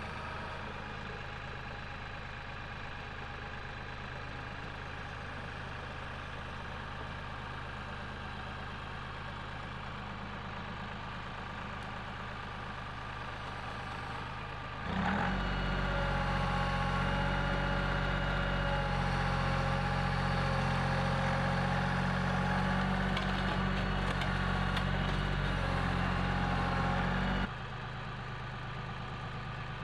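Tractor engine idling steadily, then throttled up about halfway through, running louder and higher for some twelve seconds while the bucket pushes on a stump, then dropping back to idle.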